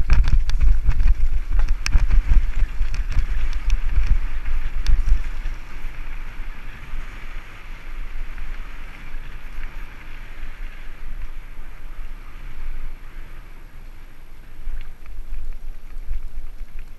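Mountain bike riding downhill over rough trail: wind buffeting the microphone with rattling knocks from the bike over bumps, busiest for the first five seconds, then easing to a steadier hiss of tyres on dirt.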